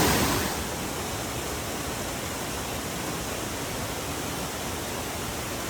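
Small waterfall on a mountain feeder stream, roaring steadily: rushing water in full flow after heavy rain. It is a little louder in the first half-second, then holds level.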